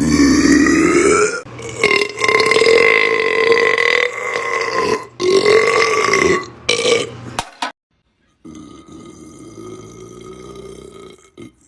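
A man burping: a run of long, loud, drawn-out burps with a steady pitch for the first seven seconds or so. After a short break, a quieter long burp.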